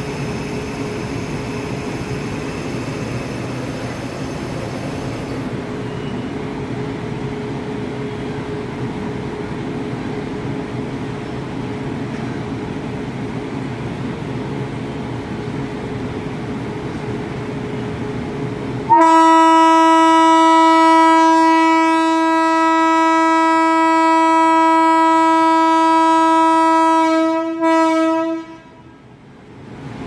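Steady hum, then the WAG-9 electric locomotive's horn sounds one long blast of about nine seconds, starting about two-thirds of the way in. The blast is a single steady note, loud, wavering briefly just before it cuts off near the end.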